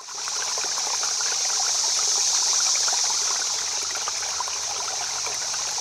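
Running water trickling steadily, fading up from silence at the start.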